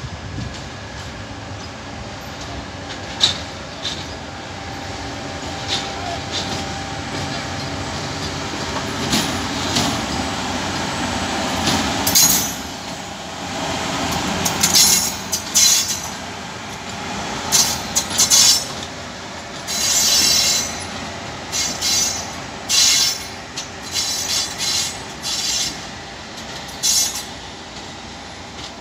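Bombardier BR 187 electric locomotive rolling past on the station tracks with a steady rumble. From about twelve seconds in its wheels squeal again and again in short, high-pitched bursts.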